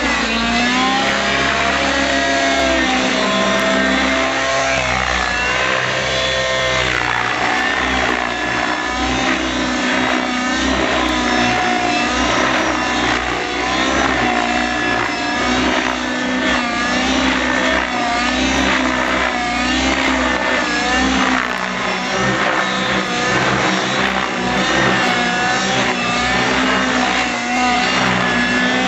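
Miniature Aircraft Stratus RC helicopter flying 3D aerobatics: its motor and rotor whine climbs and falls in pitch over and over as the head speed and blade load change through the manoeuvres.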